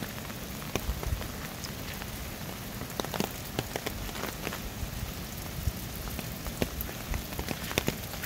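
Steady rain hiss, with scattered heavy drops tapping at irregular moments close to the microphone.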